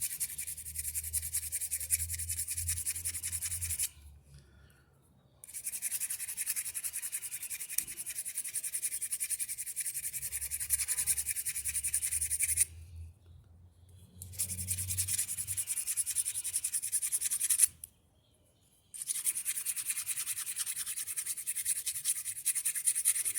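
Sandpaper rubbed rapidly back and forth by hand inside a metal part of a top-load washing machine's transmission, smoothing it so the part will slide without scraping. The rubbing comes in four long bouts with short pauses about four, thirteen and eighteen seconds in.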